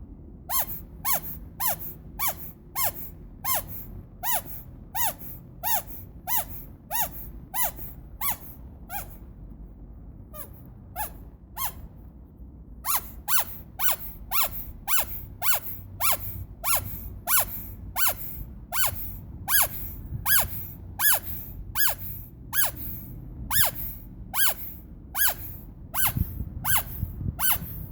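Rubber squeaky toy squeezed over and over, about two short squeaks a second, each with a slightly falling pitch. The squeaks thin out and go fainter for a few seconds near the middle, then come faster and louder, over a steady low rumble.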